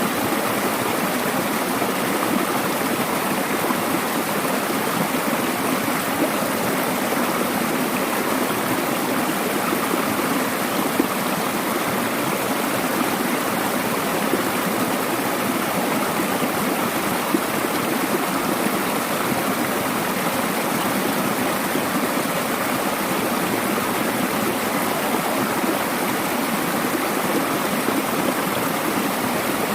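Mountain valley stream rushing steadily over rocks, a continuous even splashing of flowing water.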